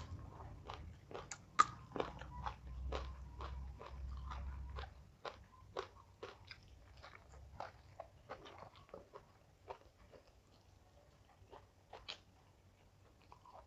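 Close-miked chewing of crisp raw vegetables: a run of short crunches about two a second, louder in the first half and softer after about five seconds.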